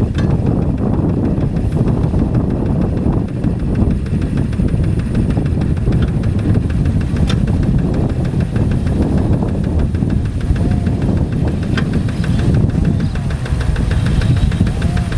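Tractor's diesel engine running steadily in a rice paddy, with a dense low, evenly pulsing drone.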